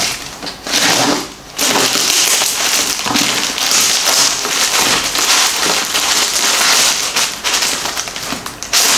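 A plastic poly mailer bag being torn open and pulled apart by hand: a dense crackling, crinkling rustle of the film. After a brief rustle at the start and a short pause, it runs on without a break from about a second and a half in.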